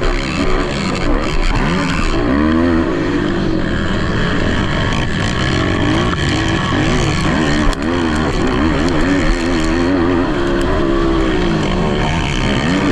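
Racing ATV (quad) engines at full throttle, their pitch rising and falling again and again as the riders accelerate and back off around the motocross track.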